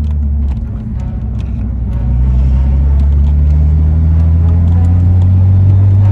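Car engine heard from inside the cabin, easing off briefly about a second in, then pulling harder with its pitch slowly rising and getting louder.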